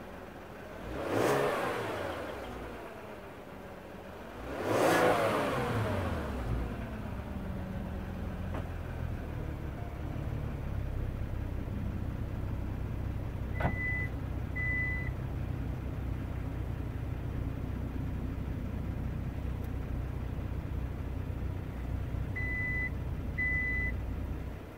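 Kia K900 sedan's engine and exhaust revved twice, about a second and five seconds in, each rev rising and falling back. It then settles into a steady low idle, which stops near the end.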